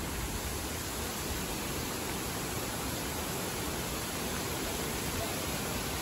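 Steady rain falling on dense foliage: an even, unbroken hiss.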